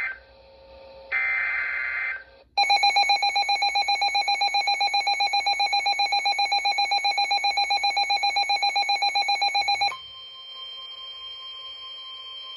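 NOAA Weather Radio SAME alert for a flood warning: a burst of screeching digital data tones about a second in, then a loud pulsing alert tone, about eight pulses a second, for some seven seconds. After that a quieter steady tone carries on.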